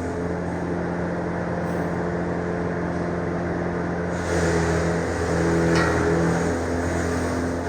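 A motor-driven farm machine running steadily, its pitch and load shifting slightly with small surges about four seconds in and again near six seconds.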